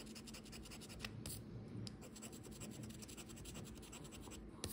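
Coating being scratched off a Loteria lottery scratch-off ticket in rapid, even strokes.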